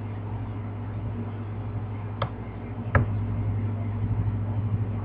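Steady low electrical hum in a small room, with two short clicks a little under a second apart about two to three seconds in. The sound effect he is trying to play does not come through.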